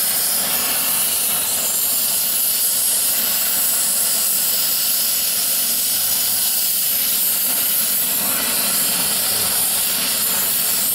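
Brazing torch flame hissing steadily as it heats a fluxed copper pipe joint on a refrigeration compressor, just before the silver brazing rod melts.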